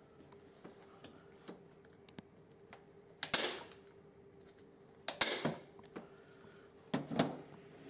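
Staple gun firing staples to fix a wire hanging loop into a wooden frame: sharp snaps a little over three seconds in, again about five seconds in, and a close pair near the end.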